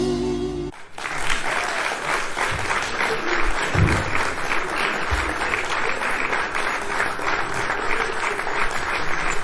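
Music cuts off within the first second, then a crowd applauds, many hands clapping densely and steadily.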